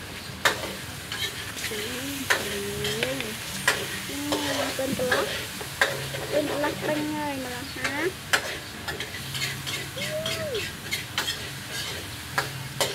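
Baby monkey sucking milk from a baby bottle: frequent sharp wet clicks and smacks from the nipple, irregular through the whole stretch. A few short wavering vocal sounds come and go between the clicks.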